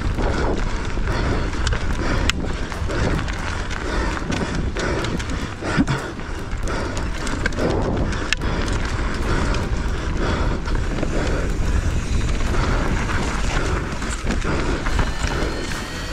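Mountain bike descending a rough trail at speed: a continuous rumble of tyres over dirt and rocks, broken by many sharp knocks and clatters from the bike.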